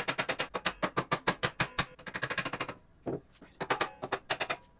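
Socket ratchet clicking in quick spurts of sharp clicks, about ten a second, as exhaust mounting bolts are worked loose; short pauses break the runs near the middle and again near the end.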